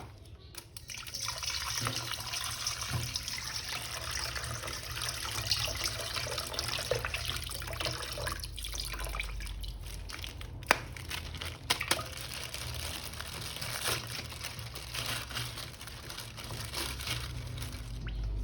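Running and splashing water as a plastic action figure is washed, with a few sharp knocks of plastic against a hard surface partway through.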